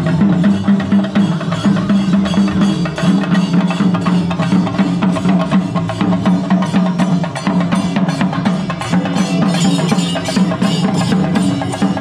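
A chenda melam: a group of Kerala chenda drums beaten with sticks, loud and fast, the strokes packed into one unbroken rhythm.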